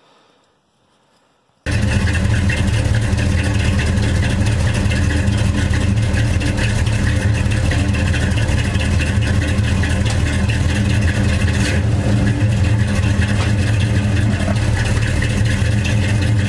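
A 1978 Chevy C10 pickup running steadily, heard from underneath at the driveshaft and GM 12-bolt rear axle. It starts abruptly about two seconds in with a strong, even low hum. The owner suspects the rear end is damaged inside: the pinion backlash has backed off and something in it is grinding.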